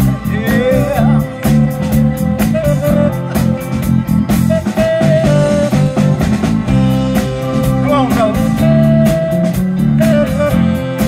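A live soul band playing an upbeat song: a steady drum-kit beat with electric bass, electric guitar and keyboard.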